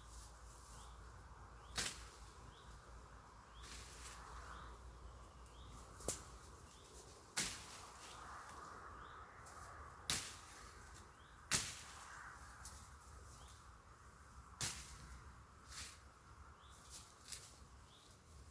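Machete chopping into wood: single sharp chops a second or a few seconds apart, with quicker, lighter cuts near the end.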